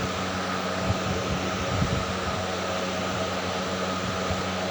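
Steady whirring hum and hiss of a running fan, unchanging in level.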